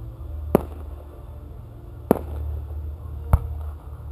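Aerial firework shells going off: three sharp bangs, roughly a second and a half apart, over a low steady rumble.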